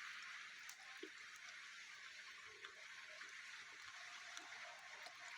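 Faint, steady hiss of rain falling, with a few soft small sounds mixed in.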